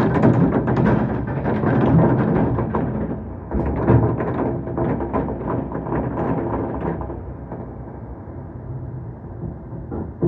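Fireworks bursting in quick succession: overlapping booms and sharp cracks over a continuous rumble, with one louder bang a little before the middle. The volleys thin out and grow quieter over the last few seconds.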